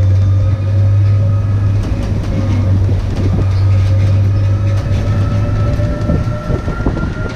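Electric beach tram running along a road: a steady electric drive whine whose pitch rises slowly as it gathers speed, over a low hum and road noise. The low hum drops away about five seconds in, and a few rattles and knocks of the open body come near the end.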